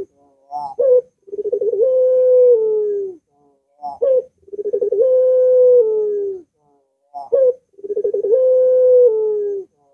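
Ringneck (Barbary) dove cooing three times, about every three seconds: each call is a short rising note followed by a long, drawn-out coo that dips in pitch at its end.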